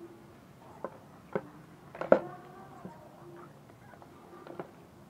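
Knife cutting raw chicken into pieces by hand: a handful of sharp knocks and clicks, the loudest about two seconds in.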